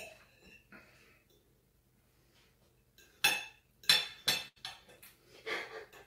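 Knife and fork clinking and scraping on a plate as a fish cake is cut, with four or five short sharp clinks in the second half.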